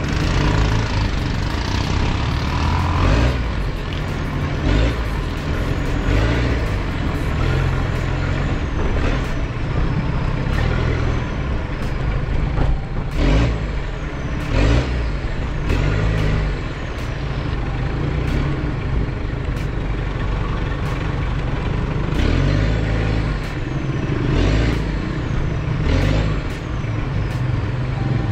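Toyota Hilux Surf's 2L-TE turbo diesel engine running under varying load as the truck crawls over a rough trail, heard from inside the cab. Repeated sharp knocks and thuds come through as it bounces over roots.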